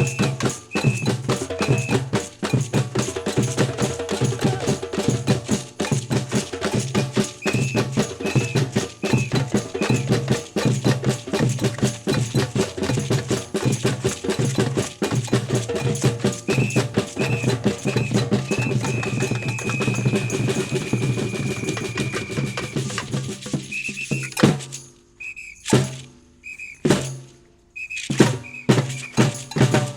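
Batucada percussion ensemble playing a samba groove: a steady beat of surdo bass drums under dense drumming, with short blasts of a samba whistle and one long held whistle note. About 24 seconds in the drumming stops together, leaving a few loud unison hits with whistle blasts between them.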